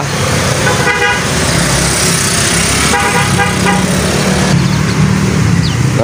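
Road traffic running steadily with a low engine rumble. A vehicle horn toots twice: briefly about a second in, and longer about three seconds in.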